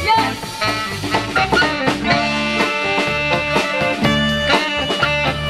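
Live pop band playing an instrumental passage between vocal lines: electric guitars, drum kit with a steady beat, and saxophones.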